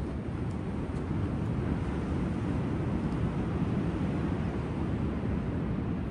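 Ocean surf at the shoreline, a steady rushing noise that swells a little about a second in.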